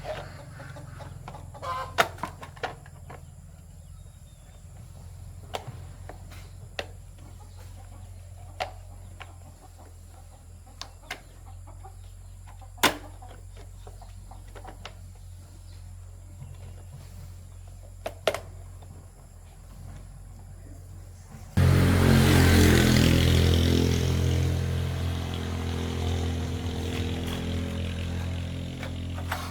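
Scattered sharp clicks and knocks over a low hum, then about 22 seconds in an electric motor starts abruptly and runs with a steady hum and rushing noise, slowly easing off toward the end.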